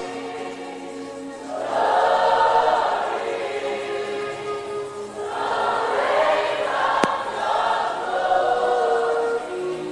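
Choir of many voices singing a slow worship chant over sustained held chords, swelling twice. A brief click about seven seconds in.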